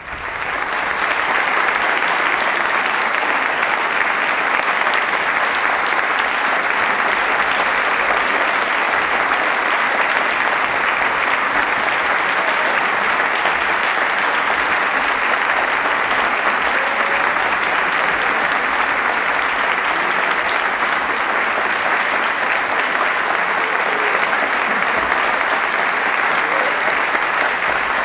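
Theatre audience applauding: dense, steady clapping that swells up over the first second or so and then holds even.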